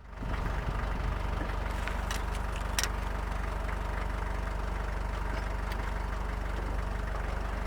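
Vehicle engine idling steadily, a low even rumble, with a few faint clicks over it.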